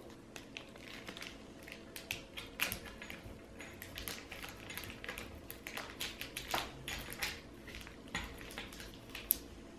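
Small plastic baggie crinkling and rustling in the fingers, with scattered faint clicks, as a de-pinger is worked out of it and pressed into the rifle's tube.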